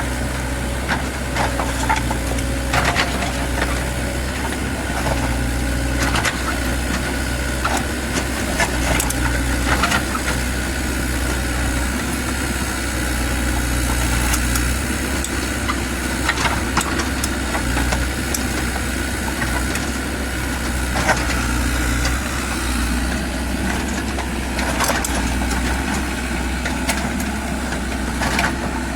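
Kubota U50 mini excavator's diesel engine running steadily under work, with irregular knocks and clatter from the machine as it digs.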